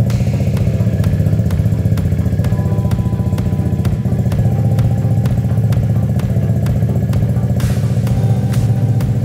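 Freshly rebuilt Hyosung GD250N motorcycle engine running steadily after its first start, with an even pulsing beat and no revving. A brief hiss comes in about three quarters of the way through.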